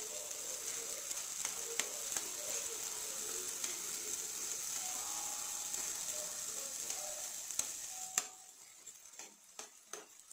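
Chopped vegetables frying in hot oil in a nonstick pan, with a steady sizzle while a spatula stirs them, its edge clicking and scraping against the pan now and then. The sizzle drops away about eight seconds in, leaving a few spatula taps.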